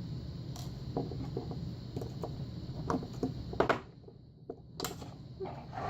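Scattered small metallic clicks and knocks of a pin-tumbler lock cylinder being handled and taken apart, two sharper clicks near the middle, over a steady low hum.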